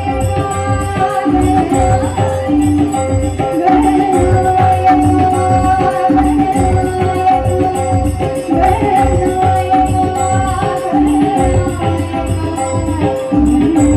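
A woman singing a Marathi song live into a microphone, over instrumental accompaniment with held drone-like tones and a steady hand-drum beat.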